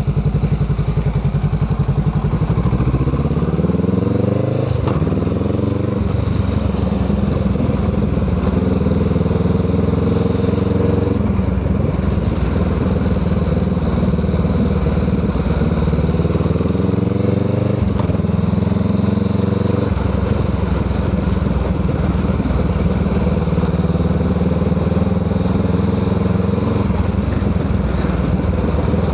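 Honda Rebel 500's parallel-twin engine running through a Musarri aftermarket exhaust muffler. The engine pitch rises over a few seconds early on, drops, and changes again several times, with long steady stretches between.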